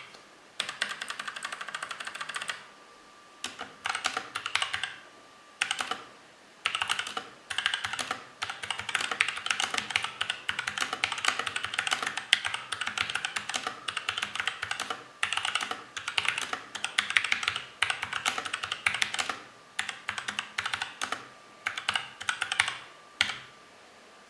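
Typing on a mechanical keyboard with tactile Outemu Sky switches lubed with Krytox 104 (springs and stem legs left dry): rapid key clacks in bursts of one to three seconds with short pauses between them. The switches run smooth, with only a slight spring ping left.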